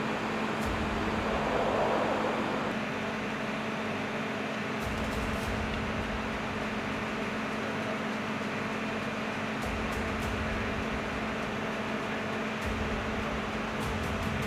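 Steady mechanical hum and hiss with a constant low tone. A deeper rumble cuts in and out abruptly about four times.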